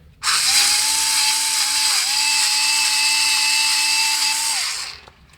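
Cordless power screwdriver running with a steady whine for about four and a half seconds, with a brief dip about two seconds in, driving the screw that holds the ABS sensor. It then stops.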